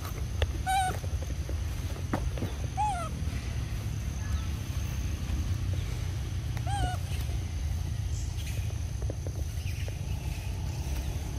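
Three short coos from an infant macaque, each rising then falling in pitch, about a second, three seconds and seven seconds in, over a steady low rumble and a thin steady high whine.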